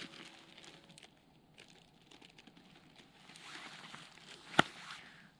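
A thin plastic bag crinkling and rustling in the hands in several spells, with one sharp click about four and a half seconds in.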